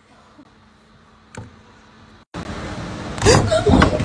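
Quiet room tone with a single short tap, then a sudden jump to louder background and a loud, wavering cry from a startled woman, lasting under a second near the end.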